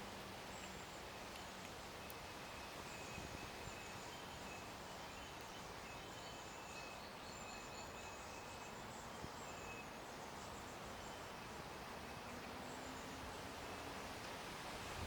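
Outdoor nature ambience: a steady hiss of background noise with faint, short, repeated high-pitched calls, likely from birds or insects.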